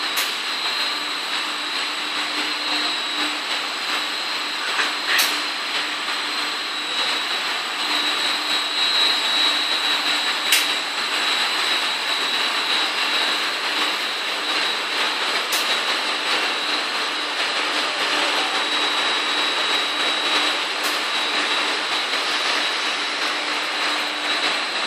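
UV lacquer finishing line for wood panels running: a steady machine whir and hiss with a high steady whine, and a sharp click about every five seconds.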